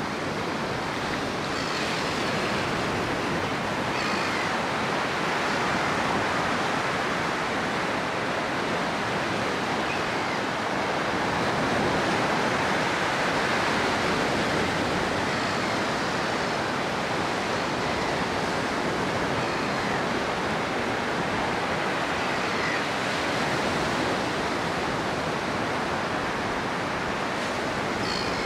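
Baltic Sea surf breaking and washing up onto a sandy beach: a steady rushing wash of small waves that swells a little now and then.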